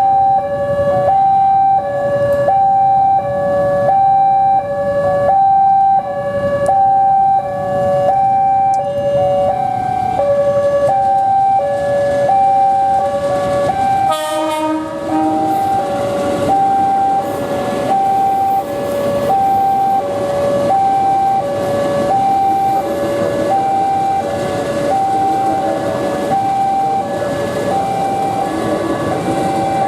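A double railway level-crossing warning alarm: two electronic sirens sounding together, each alternating between a high and a low tone about once a second, their patterns drifting in and out of step. Under it runs the low rumble of a passing train.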